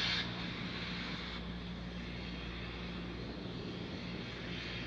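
Launch-pad ambience of a fuelled Falcon 9 during propellant loading: a steady rumble and hiss from the vehicle venting oxygen gas, over a constant low hum. A brief louder hiss comes right at the start.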